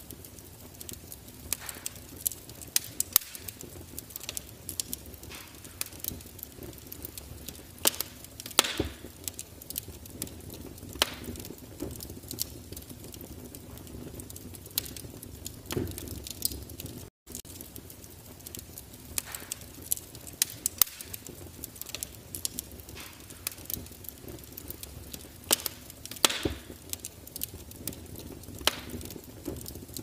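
Wood fire burning in a glass-fronted fireplace insert, crackling with irregular sharp pops and snaps over a low steady rush of flame.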